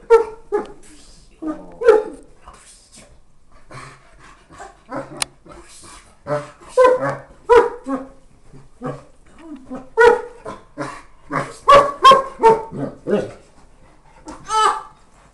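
A Leonberger dog vocalizing in a happy morning greeting: short barks and whines that come in irregular clusters with pauses between, loudest in a rapid run about two-thirds of the way through.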